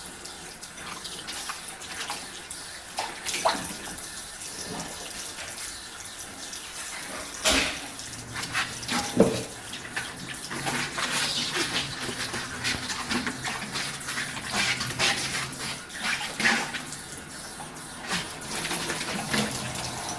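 Tap water running into a sink while dishes are washed by hand, with several sharp clinks and knocks of dishes, the loudest about seven and nine seconds in. A faint low hum joins about eight seconds in.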